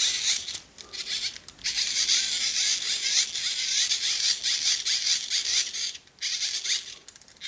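Tiny hand-crank dynamo LED flashlight being cranked: its small plastic gears and generator give a high whir whose pitch wavers with the crank speed, with a few short breaks, dying away near the end. The freshly reassembled dynamo is turning and working.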